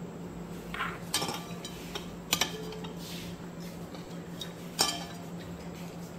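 A few short clinks and knocks of ceramic dishes on a counter: a small cluster about a second in, a sharp one a little past two seconds, another near five seconds.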